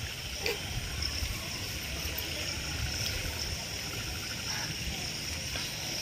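Outdoor ambience after rain: a steady high-pitched insect chorus, with a few short chirps and an uneven low rumble underneath.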